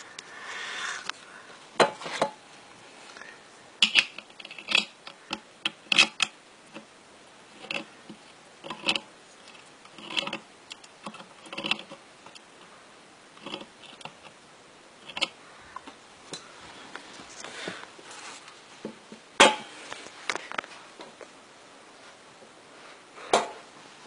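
Scattered, irregular clicks and knocks of handling, a few every couple of seconds, with no bell ringing; the sharpest knock comes about three-quarters of the way through.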